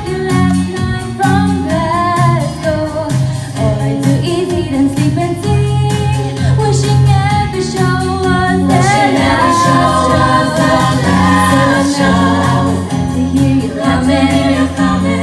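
A vocal group of girls and a boy singing pop in harmony into microphones, over an accompaniment with steady bass notes and a regular beat.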